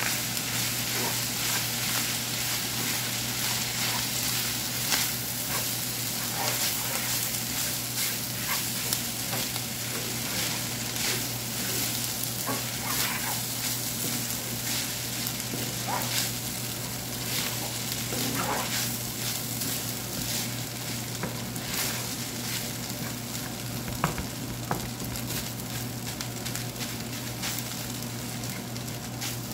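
Fried rice with shrimp and vegetables sizzling in a stainless steel frying pan as it is stir-fried with a wooden spatula, mixing in the sauces just added. There are frequent light scrapes and taps of the spatula on the pan over a steady low hum.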